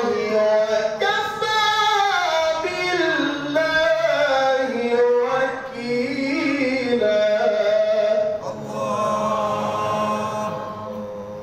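A man's voice reciting the Quran in a melodic, ornamented style, drawing out long wavering notes and gliding between pitches. It is amplified through a microphone and PA loudspeaker. Near the end one long held note tapers away.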